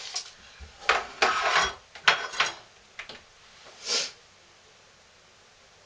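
Knocks and clatter of a small digital kitchen scale and a soap bar being handled and set down on a wooden table, mostly in the first two and a half seconds.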